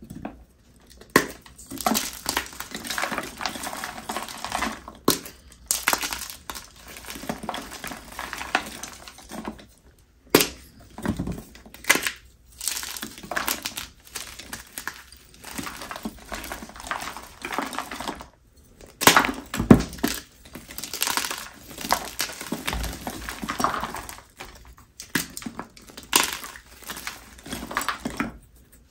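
Blocks of gym chalk being crushed: crunchy crumbling in bursts a few seconds long with short pauses between, and a few sharper cracks.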